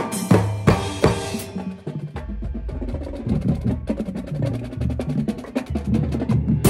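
Drum set playing with a marching band: a few loud hits in the first second and a half, then a quieter passage of held low notes under light ticking strokes.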